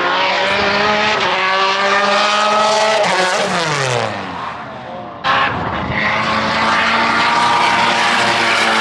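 Subaru WRX's flat-four engine at high revs on a racetrack, the pitch climbing steadily for about three seconds. The revs then fall away and it quietens, and about five seconds in it comes back suddenly loud at high, steady revs.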